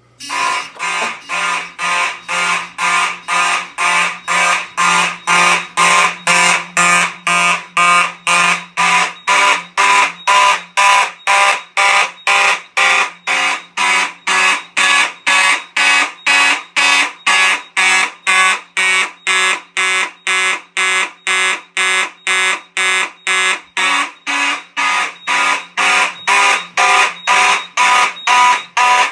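Fire alarm horns on a Simplex 4100 classic fire alarm system sounding in alarm. They give a steady, rapid pulse of about two and a half blasts a second, with no pauses between groups.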